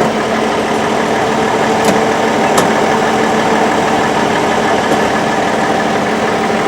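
Vehicle engine idling steadily, with two short clicks about two and two and a half seconds in.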